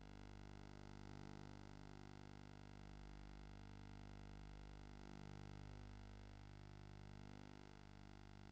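Near silence: a faint steady electrical hum with hiss, unchanging throughout.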